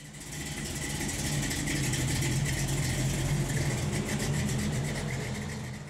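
An engine idling steadily with an even pulse. It fades in at the start and fades out near the end.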